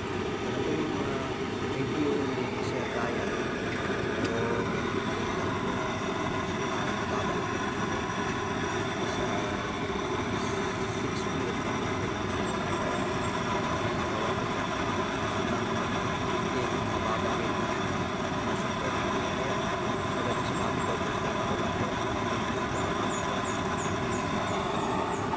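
Used-oil stove burner alight, giving a steady, unbroken rushing noise throughout.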